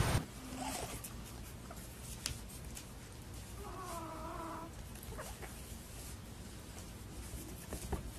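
Small black kitten meowing once, about three and a half seconds in: a single mew a little over a second long, with a few faint clicks around it.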